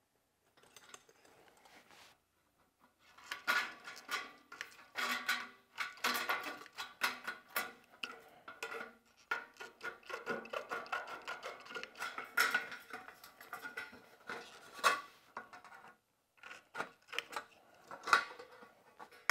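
Hand snips cutting sheet-metal window trim: a run of crisp snips with the metal panel clattering and rattling, starting about three seconds in and pausing briefly near the end.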